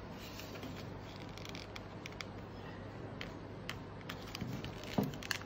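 Faint scratching and crinkling of a glued paper label being picked and peeled off a cast iron skillet by fingernails, with scattered small clicks and one sharper click about five seconds in.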